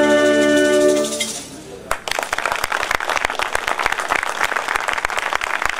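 A wind band and folk ensemble hold a final sustained chord that dies away about a second in; after a brief lull, audience applause breaks out about two seconds in.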